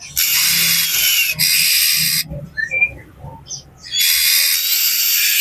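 Oriental magpie-robin (kacer) giving harsh, hissing rasp calls: two long rasps back to back at the start and a third near the end, with a few short whistled notes in the gap. This agitated scolding is the noisy kacer call used to provoke other magpie-robins.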